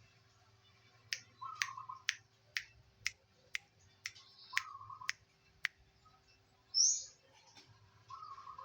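Zebra dove (perkutut) cooing in short notes, over a run of sharp clicks about two a second. A single high chirp about seven seconds in is the loudest sound, and a faint steady hum runs underneath.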